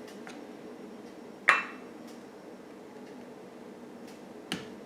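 Two light clinks against a small ceramic Fiesta cup of coffee, the first about a second and a half in with a brief ring, a softer one near the end, over a faint steady hum.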